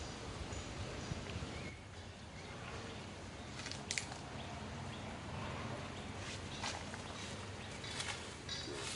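Outdoor ambience: a steady hiss with scattered light clicks and rustles, the sharpest about four seconds in.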